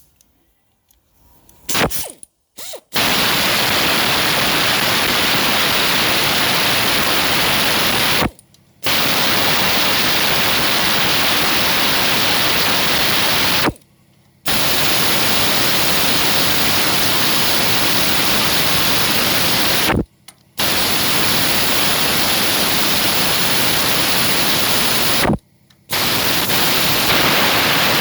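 Loud, steady hiss of a compressed-air or aerosol spray jet. It starts with a few short blasts, then runs in long bursts of about five seconds, each cut off by a brief stop.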